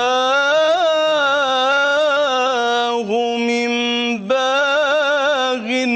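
A solo male voice singing an Egyptian ibtihal, an unaccompanied Islamic devotional supplication, drawing out one syllable in a long ornamented melisma. About three seconds in it settles onto a lower held note, breaks briefly for breath a little after four seconds, then resumes until the phrase ends.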